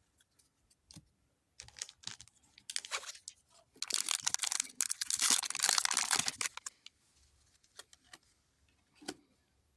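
Light clicks and taps as trading cards and their plastic packaging are handled, with a stretch of crinkling and rustling plastic in the middle lasting about three seconds.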